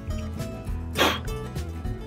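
Background music with a steady bass line, with one short, sharp noise about a second in.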